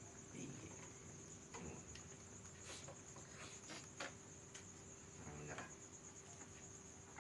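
Near silence: a faint steady high-pitched trill, with a few soft clicks and rustles.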